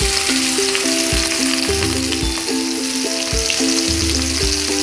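Chopped onions sizzling in hot oil in a kadai, a steady hiss, over background music with an even beat.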